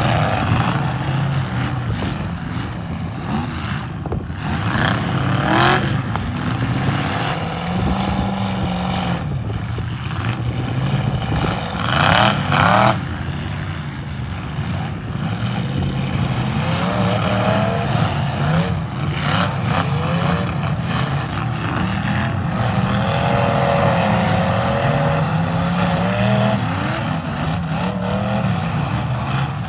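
Demolition derby car engines revving and running hard, their pitch rising and falling, with a short loud burst of noise about twelve seconds in.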